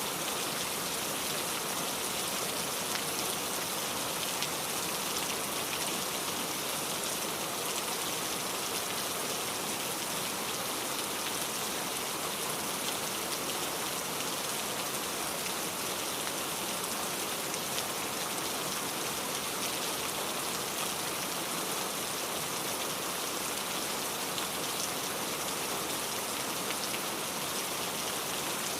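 Steady rain falling, a continuous even hiss with many small drop patters on a surface.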